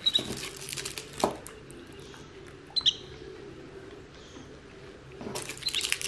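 A green-cheeked conure giving a few short, high chirps: one at the start and a quick pair about three seconds in. Between them come crackling rustles and clicks of a candy wrapper being handled.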